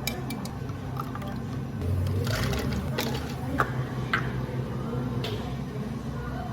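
Café counter work sounds: equipment humming steadily, a short rush of liquid about two seconds in, and sharp clinks of tableware.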